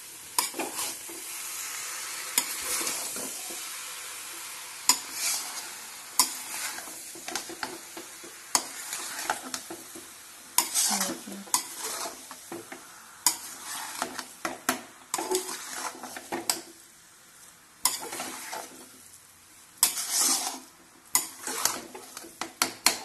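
Metal spatula stirring and scraping potatoes and fenugreek greens in a metal kadhai, with irregular clinks and scrapes against the pan over the sizzle of the food frying.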